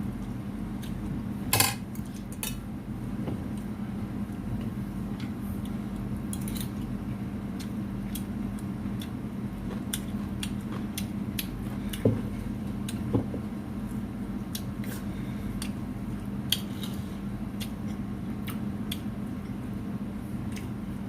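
Cutlery clinking and scraping on a plate during a meal: scattered light clicks with a few louder knocks, over a steady low hum.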